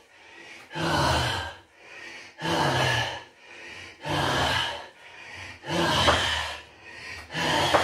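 A man breathing hard through a set of cat dip push-ups: a loud, forceful exhale with some voice in it about every one and a half seconds, in time with the reps, with quieter breaths between.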